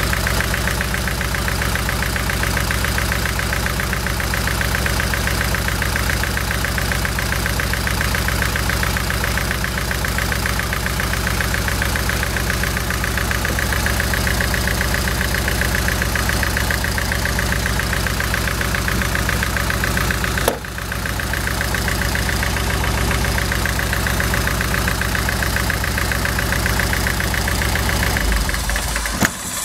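VVC engine running at idle with a misfire whose cause has not been found. A sharp click about two-thirds of the way through, after which it runs a little quieter; the sound drops away near the end.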